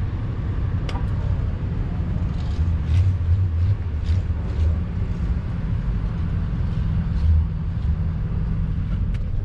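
Car driving on the road: a steady low rumble of engine and road noise heard from inside the cabin, with a few faint clicks.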